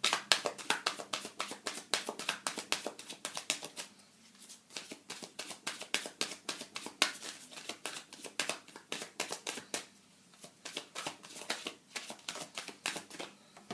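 Tarot deck being shuffled by hand: a quick, steady run of sharp card slaps and clicks, with brief pauses about four and ten seconds in.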